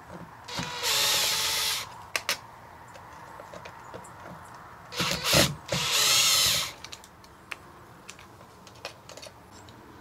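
Makita cordless driver run in two short bursts of about a second each, turning the screws of an old brass doorbell button to take it off the door frame, with small clicks of handling between the bursts.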